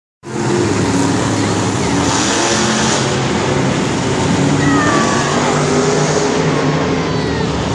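Monster truck engines running loud and steady, their pitch shifting up and down as the trucks drive and rev on the dirt floor of an indoor stadium.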